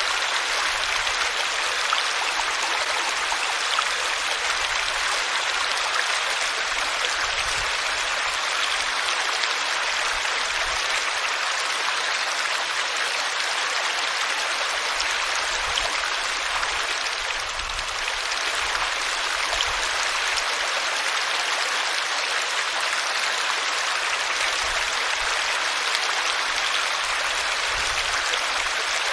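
Water flowing steadily in a small stream, an even rushing and burbling.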